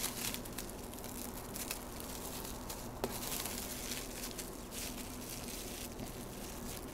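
Plastic cling wrap crinkling faintly as hands fold it around a block of cookie dough, with a single sharp click about three seconds in.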